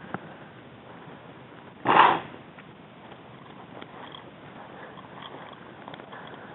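Rustling and steps through tall dry grass, picked up by a body-worn camera's microphone, with one loud, short whoosh of brushing or breath on the microphone about two seconds in.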